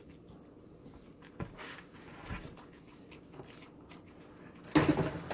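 Guinea pig chewing a celery stalk: faint, irregular crunching clicks, with a louder burst of noise near the end.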